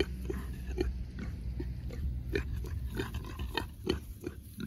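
Pigs grazing and rooting close by: short snuffles, chewing and soft grunts, two or three a second.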